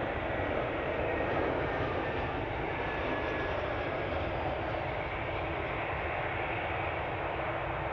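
Airliner jet engines running steadily as aircraft move on the airfield. A faint high whine drifts slowly down in pitch during the first few seconds.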